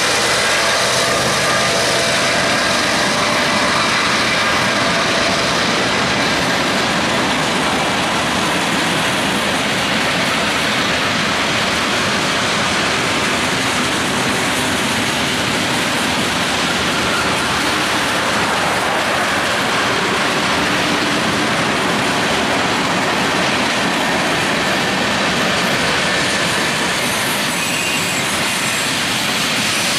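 BNSF freight train rolling past: diesel locomotive engines running over a steady rumble and clatter of steel wheels on the rails. After the first few seconds it settles into the even noise of covered hopper cars going by.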